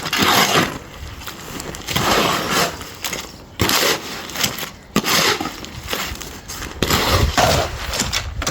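Shovel scraping and turning wet cement mix, a gritty scrape every second or two.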